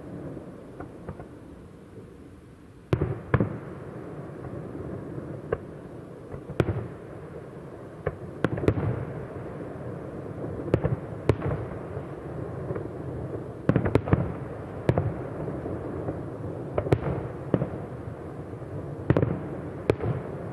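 Aerial fireworks shells bursting in the sky: after about three quieter seconds, a run of sharp bangs comes every one to two seconds, some in quick pairs, each trailing off with a short rolling echo.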